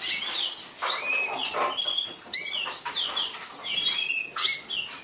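Canaries chirping and calling in quick, short whistled notes that rise and fall, with some brief rustling among them.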